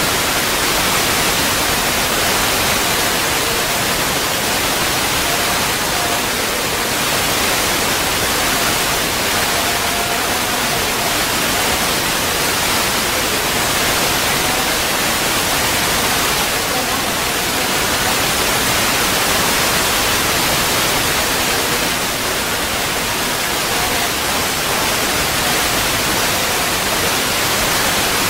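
Loud, steady hiss like static, with faint brief tones surfacing now and then.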